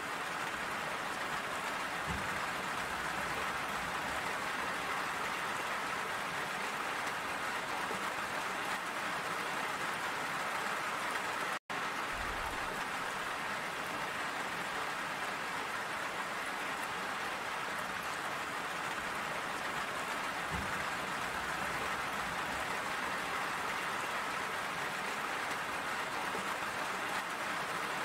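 Steady rain, an even hiss of many drops, with a momentary drop-out to silence about halfway through.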